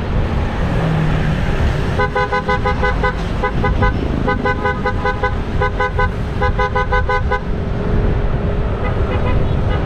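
A vehicle horn beeping in a run of short, quick bursts from about two seconds in until a couple of seconds before the end, over steady wind rush and motorcycle engine noise.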